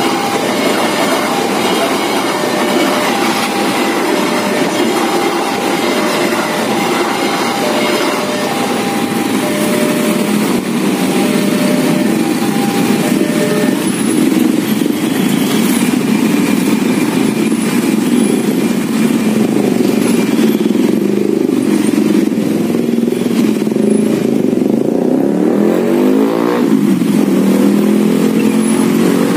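Railway level-crossing alarm sounding its slow two-note warning, alternating a higher and a lower tone, over a passing train and a crowd of idling motorcycles. The alarm stops about halfway through as the barriers lift, and the motorcycle engines rev as the riders pull away, with one engine rising in pitch near the end.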